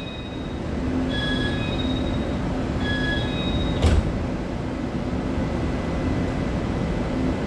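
Chu-Kuang express train standing at an underground platform with a steady rumble and hum. Short door-warning beeps sound a few times, and a sharp bang about four seconds in, as the automatic doors shut.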